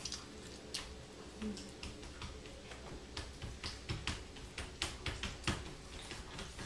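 Gum being chewed with the mouth open: a run of irregular wet clicks and smacks, a few a second.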